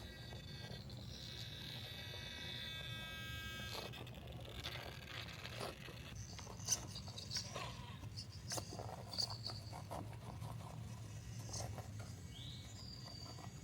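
Axial SCX10 II RC crawler driving: its electric motor and gears give a steady whine for a few seconds, then scattered clicks and knocks as the truck works over terrain, with a rising whine near the end.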